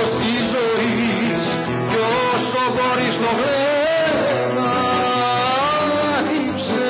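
Cretan lyra playing an ornamented melody over a plucked-string accompaniment. About two-thirds of the way through, a man's voice holds one long sung note.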